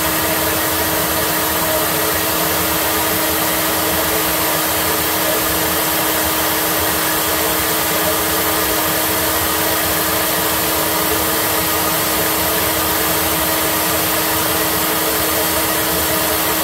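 Handheld BlowPro hair dryer running steadily, a constant rush of air with a steady motor hum, blowing hot air onto a plastic straw to thaw ice in a refrigerator's defrost drain.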